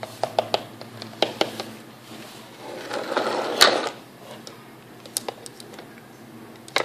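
Small plastic toys being handled on a floor: a scatter of light clicks and knocks, with a short swell of rustling, scraping noise about three seconds in that ends in a sharper click.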